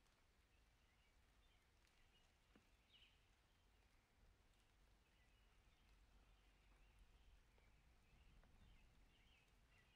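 Near silence: faint background hiss with a few very faint, short high chirps now and then.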